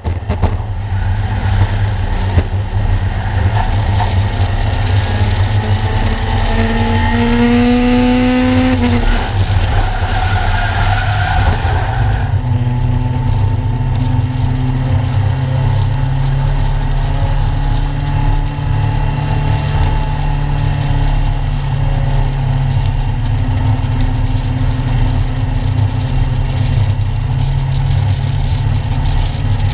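A 1-litre stock car's engine heard from inside its stripped, caged cockpit, running with road and wind noise. The revs climb in a rising whine about seven to nine seconds in. From about twelve seconds the engine settles into a steady, even note.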